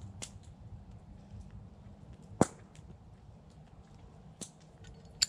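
Campfire wood crackling, with a few sharp pops scattered through, the loudest about two and a half seconds in.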